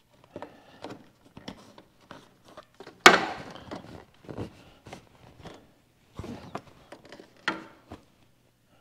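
Hands pressing convertible-top fabric over its retaining clips at the rear side window, giving scattered clicks and rustles. A sharp knock comes about three seconds in and a smaller one near the end.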